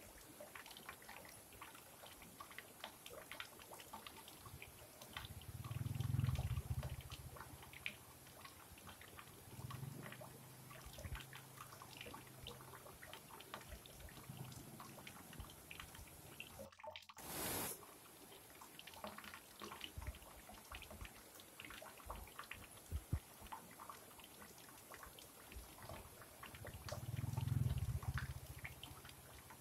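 Small rocky stream trickling and splashing over low cascades, heard as a faint patter of drip-like ticks. Low rumbles swell a few times, and a little past halfway the sound drops out briefly, then comes back with a short burst of hiss.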